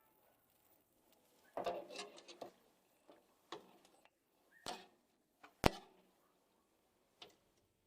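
A few scattered knocks and clicks, with a short cluster about two seconds in and the sharpest single click about five and a half seconds in.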